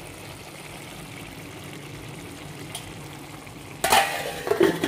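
Tomato chicken curry sizzling steadily in oil in a frying pan. Near the end, a steel lid clatters as it is set over the pan.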